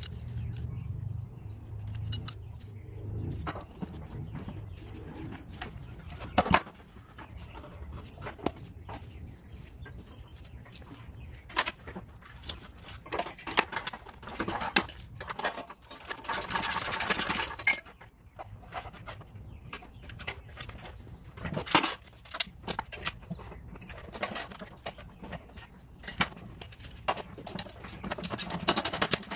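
Metal parts clinking and knocking at irregular moments as a steel blade adapter is fitted and worked around a lawn mower engine's crankshaft, with a few sharper knocks and a brief hiss a little past halfway.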